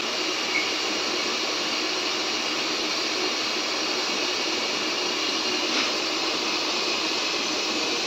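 Pressurised gas hissing steadily out of a leak in a window AC's copper coil pipe: the leak the pressure test has found.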